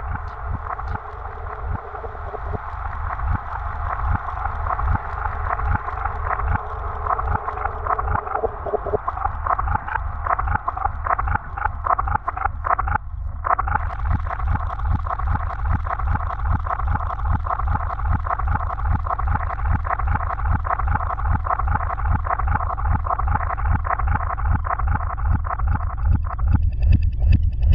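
Electronic sound design for an abstract animation: fast, even pulsing over a deep low rumble. The pulsing cuts out briefly about halfway through. Near the end the middle of the sound thins out and a few high steady tones come in.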